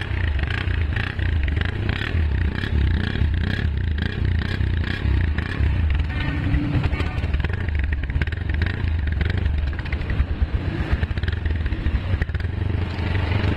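Honda CG 125's single-cylinder four-stroke engine running, heard close at the silencer outlet. Its exhaust note is poor, which the mechanic puts down to heavy carbon build-up inside the uncleaned silencer.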